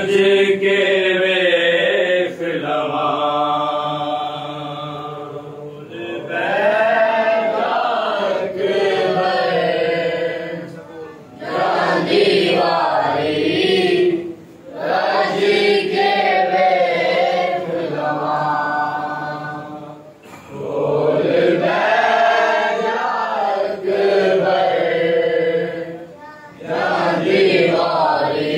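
Men's voices chanting a noha, a Shia Muharram mourning lament, in long drawn-out phrases of a few seconds each, with short breaks between them.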